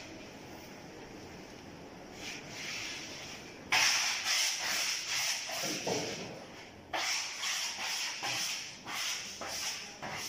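Wallpaper being rubbed flat against a ceiling: a quiet start, then from about four seconds in a run of rubbing strokes, about two a second.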